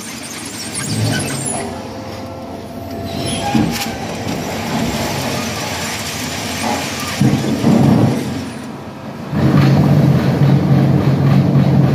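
Concrete block production line machinery running: a steady low motor hum that weakens, then comes back louder about nine seconds in, with a sharp clank near four seconds in.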